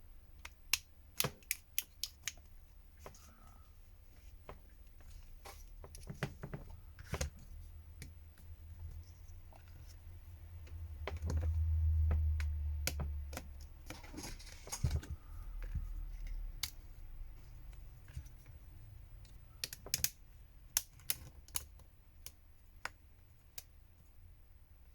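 Small sharp plastic clicks and snaps, irregular and in short runs: a plastic pry tool working along a phone's plastic midframe, its clips popping loose. A low rumble swells for a couple of seconds near the middle.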